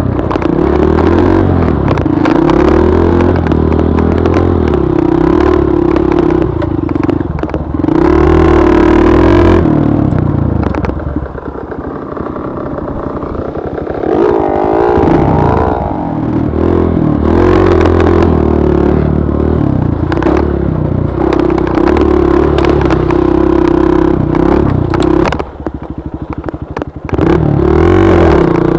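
Trail motorcycle engine revving up and down under changing throttle. It eases off for a few seconds about eleven seconds in and dips again briefly near the end.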